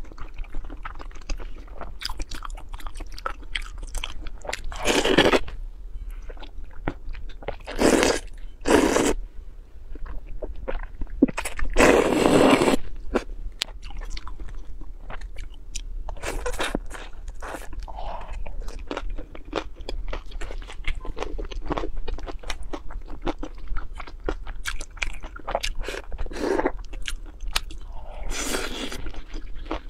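Close-miked mukbang eating: steady wet chewing and crunchy bites with many small mouth clicks, broken by several louder slurps of glass noodles, the longest just past twelve seconds in.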